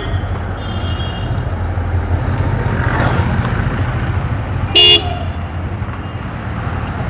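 Motorcycle engine running steadily under way, with road and tyre noise on a wet street. A short, loud vehicle horn honk comes about five seconds in, and fainter horn toots come about a second in.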